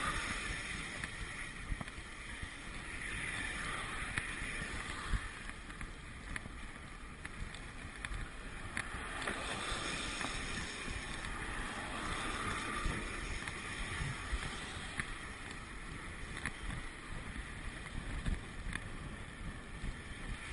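Bicycle riding on a wet road, heard through a handlebar camera: steady wind noise on the microphone and tyre hiss, swelling now and then as cars pass, with a few light knocks.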